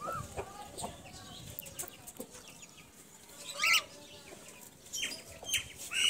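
Chickens clucking and calling, with one louder arched call about three and a half seconds in and scattered clicks and scuffles.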